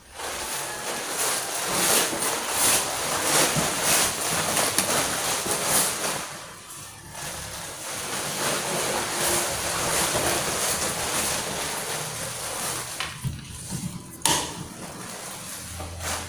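Rushing, gusting noise of wind buffeting the microphone, swelling and easing irregularly, with a sharp click a little past the middle.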